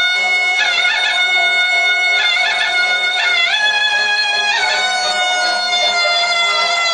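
Background music: a reedy wind instrument plays an ornamented melody of long held notes broken by quick trills, stepping up to a higher note about halfway through.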